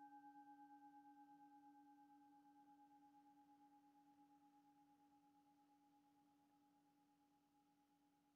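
A struck singing bowl's ring dying away: a faint, low hum with a couple of higher tones above it, wavering slowly. The highest tone fades out about halfway through.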